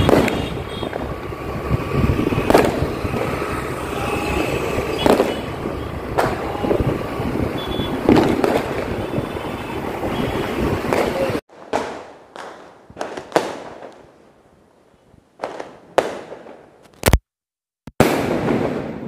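Fireworks and firecrackers going off: a dense run of cracks and pops over a constant din, then, after an abrupt cut about two thirds of the way in, separate loud bangs, each with a short echoing tail. A moment of dead silence comes shortly before the end.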